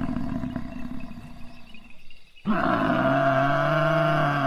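Buffalo bellowing: a rough, low call for about two seconds, a short break, then a long, steady, low bellow from about halfway through that is still going at the end.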